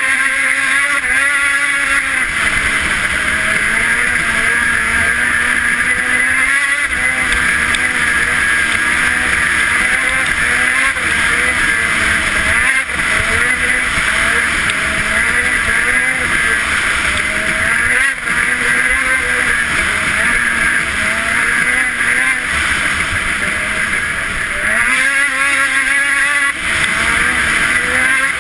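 Ski-Doo 600 RS snowmobile's two-stroke twin engine running under way, heard from the seat. Its note wavers up and down with the throttle and climbs briefly a few seconds before the end.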